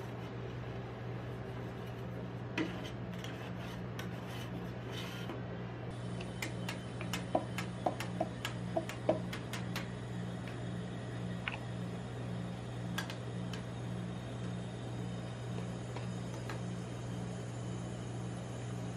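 Metal spatulas scraping and tapping on the frozen steel plate of a rolled-ice-cream machine as the rolls are lifted into a paper cup. The scrapes and clicks come now and then, with a quick run of sharp taps near the middle, over a steady low hum from the machine's refrigeration unit.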